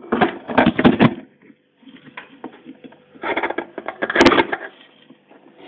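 Clattering and rustling handling noise in two bursts, with a sharp click near the second, as the multimeter and its test leads are picked up and moved about on the workbench. A faint steady hum from the powered tube amplifier's transformer runs underneath.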